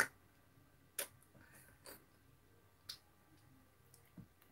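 A few faint, short clicks, about one a second, over a very quiet room.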